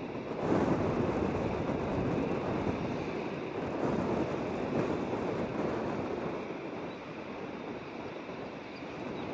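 Boeing 737 jet engines at takeoff thrust during the takeoff roll and lift-off, heard from across the airfield as a steady rushing rumble. It swells about half a second in and eases a little near the end, with wind buffeting the microphone.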